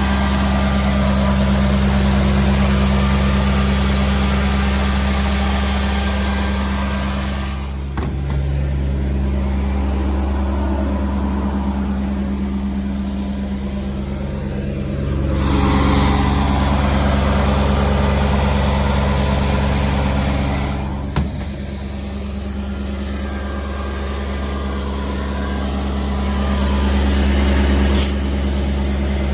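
John Deere diesel engine of an Atlas Copco XAS96 portable air compressor running at a steady speed, with a hiss over the engine that dies away and comes back twice. A few single sharp knocks or clicks are heard.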